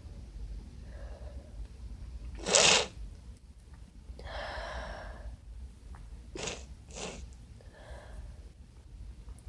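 A person with a congested nose sneezes once, sharply and loudly, about two and a half seconds in. A longer breathy exhale follows, then a couple of short sniffles.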